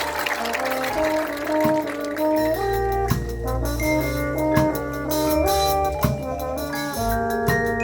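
A high school band playing: brass holding and stepping through chords over drum hits, with mallet percussion.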